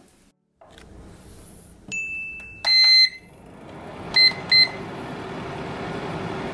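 HAAN food dehydrator control panel beeping as its buttons are pressed: a steady higher tone, then one loud beep and two short beeps. From about four seconds in, the dehydrator's fan starts running, a steady hum that grows louder.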